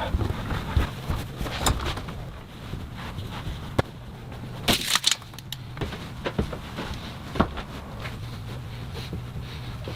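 Irregular clicks and knocks over a low steady hum, with a brief louder rushing noise about five seconds in.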